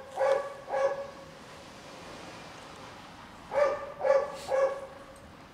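A dog barking out of sight: two short barks, a pause of a few seconds, then three more in quick succession.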